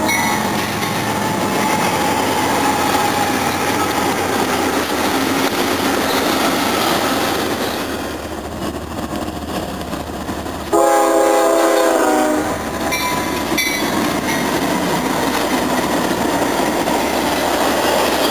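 Freight train diesel locomotives and cars rolling past on the rails. About eleven seconds in, a locomotive horn sounds one loud multi-note chord for about a second and a half, and then the train's rolling noise carries on.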